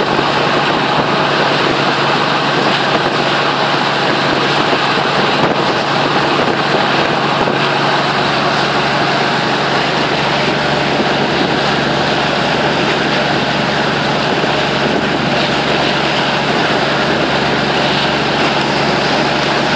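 A boat's engine running steadily under way, its low hum beneath a loud, constant rush of churning water from the wake.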